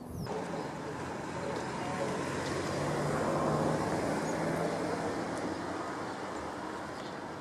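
A road vehicle passing: a rushing noise with a low hum that swells to its loudest about halfway through and then slowly fades.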